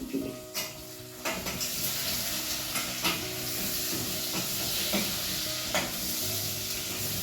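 Chopped carrots sizzling in hot oil and tomato paste in a cooking pot, stirred with a spoon that clicks against the pot now and then. The sizzle grows louder about a second in.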